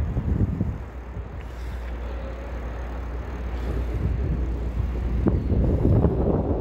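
Wind buffeting the microphone: a steady low rumble with rough noise over it, growing louder near the end.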